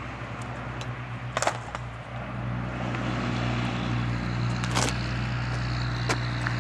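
A streetsurfing board knocking on asphalt as a rider steps onto it: a couple of sharp knocks about a second and a half in and again near five seconds, and a lighter one near the end. Under them runs a steady low hum that gets a little louder about two and a half seconds in.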